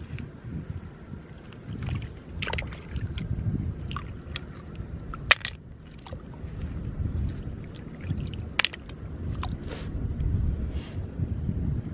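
Hands splashing and rummaging in shallow lake water and mud while picking snails, with a low rumble of wind on the microphone. A few sharp clicks, the loudest about five seconds in and again near nine seconds.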